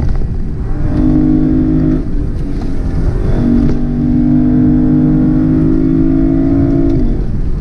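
Lexus LC500's 5.0-litre naturally aspirated V8 pulling under throttle, heard from inside the cabin. Its note holds a fairly steady pitch, drops out briefly about two seconds in, returns, and eases off about seven seconds in, over a constant rumble of tyre and road noise.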